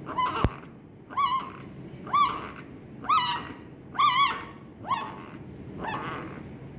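Puppy sick with parvovirus crying: a short, high, rising-and-falling whimper repeated about once a second, seven times, the last one faint. A sharp click sounds just after the first cry.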